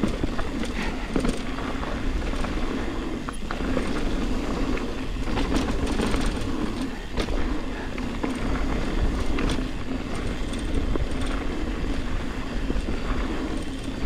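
Ibis Ripmo mountain bike rolling fast down loose, dusty dirt singletrack: a steady rushing rumble of tyres on dirt and air, with scattered rattles and clacks from the bike as it goes over bumps.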